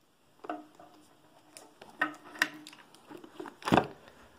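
A taped block of lithium pouch cells being pushed down into a metal battery case: a string of scrapes and knocks with brief squeaks, ending in a solid thump about three and a half seconds in as it seats.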